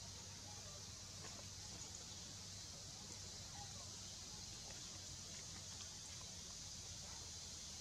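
Faint outdoor ambience: a steady high-pitched hiss with a low hum beneath it and a few faint, short chirps.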